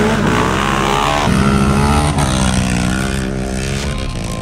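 Several ATV and side-by-side engines revving and running hard at once, their overlapping tones shifting up and down in pitch as the machines accelerate down a dirt drag strip.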